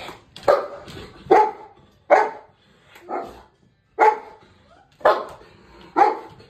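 Golden retriever barking, about seven single barks roughly a second apart.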